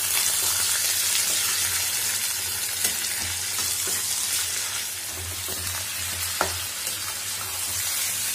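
Raw chicken pieces sizzling in hot oil with frying onion, garlic, ginger and green chilli in a nonstick pan, being stirred with a spatula. The chicken is being briefly seared. Under the steady sizzle there are a few light clicks of the spatula against the pan.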